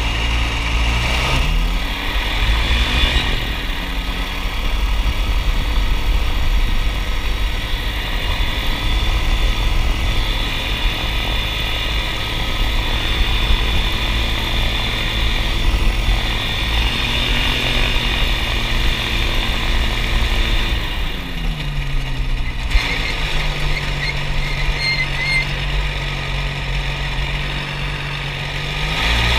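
Ultralight aircraft engine running during a taxi on grass: it revs up in the first few seconds, holds a steady higher speed, drops back to a lower speed about three-quarters of the way through, then revs up again at the end.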